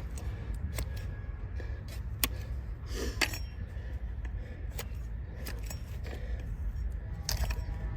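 Hoof knife paring a donkey's overgrown, hard hoof: irregular sharp clicks and scrapes of the blade on the horn, a few seconds apart, over a low steady rumble.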